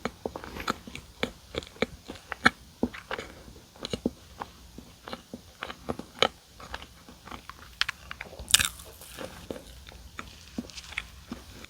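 Close-miked biting and chewing of donuts: irregular wet mouth clicks and smacks with crisp crunches. A louder crackle comes about eight and a half seconds in.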